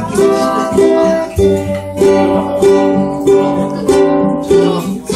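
A ukulele and an acoustic guitar strumming chords together in a steady rhythm.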